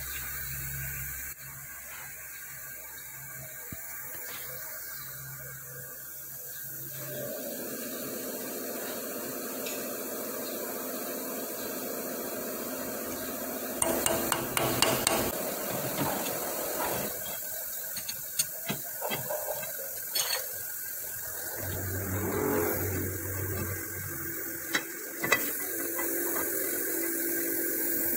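Steady machine hum that shifts pitch a few times, with bursts of sharp metal clinks and knocks through the middle and a single knock a little before the end, as a tap held in a lathe's drill chuck threads the bore of a hexagonal bar for a valve stem lock nut.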